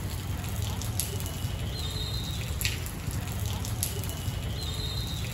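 Steady outdoor ambience dominated by a low rumble of wind buffeting the phone's microphone, with a few sharp clicks and faint high whistling tones about two and four seconds in.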